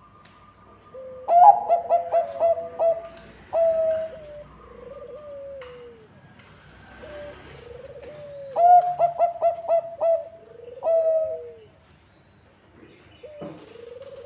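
Zebra dove (Bangkok-type perkutut) cooing song: two bursts of rapid staccato coos, about a second in and again about eight seconds in, each followed by a longer coo, with softer falling coos in between.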